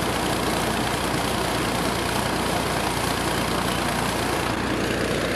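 Engine of a tubewell boring machine running steadily at a constant speed.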